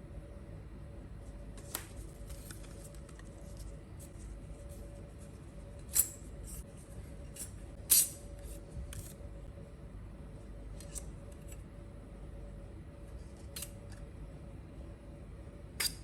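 Scattered light clicks and clinks of small metal stencils and tool parts being handled, with louder clicks about 6 and 8 seconds in, over a faint steady hum.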